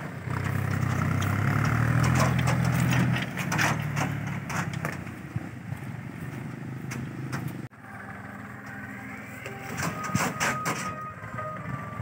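Small farm tractor engine running steadily as it pulls its trailer away, loud at first, then fading over the next few seconds. After a sudden cut, a quieter stretch with a faint thin steady tone near the end.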